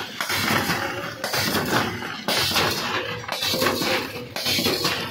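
Vertical form-fill-seal pouch packing machine running and packing nimko snacks: a rattling metallic clatter that repeats about once a second, one pulse per bag cycle.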